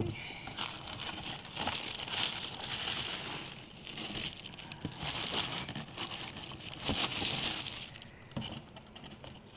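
Shoe-box packaging crinkling and rustling in irregular bursts as a pair of sneakers is unpacked, with a few light knocks; it dies down near the end.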